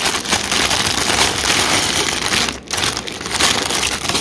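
Sealed plastic Lego parts bags crinkling loudly as they are handled and sorted, with a short pause about two and a half seconds in.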